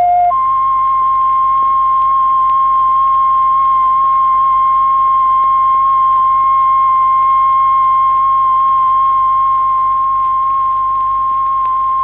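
Steady pure electronic tone from a tone generator, the driving tone that sets a powder-covered plate vibrating for cymatics patterns. It jumps up in pitch a moment in, then holds one unwavering note.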